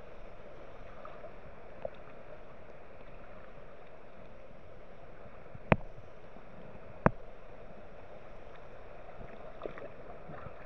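Steady rush of fast-flowing river water, with two sharp knocks about a second and a half apart midway through and a fainter one near the start.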